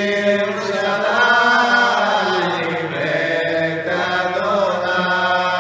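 A group of men's voices singing together, holding long notes that bend slowly in pitch.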